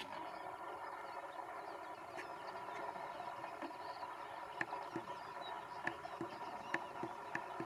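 A steady mechanical hum, with short sharp ticks a couple of times a second from about halfway in.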